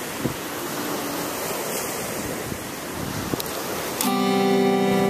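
Steady wind rushing on the microphone, then about four seconds in an acoustic guitar chord is strummed once and rings on.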